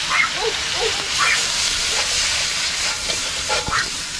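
Chicken pieces frying in hot oil in a pan, a steady sizzling hiss.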